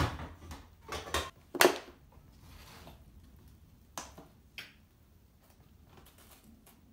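Kitchen handling sounds: a run of knocks and clunks of cookware on the counter in the first two seconds, the loudest about a second and a half in, then two sharp clicks around four seconds in as a lidded plastic food container is handled.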